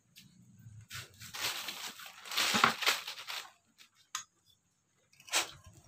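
Scraping and rustling of engine parts being handled and cleaned, loudest about two and a half seconds in, then a short click near the end.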